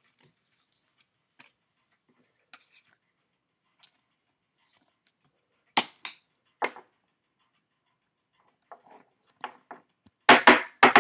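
Plastic trading-card pack wrapping crinkling in the hands in a few short rustles, with a louder burst of crinkling near the end.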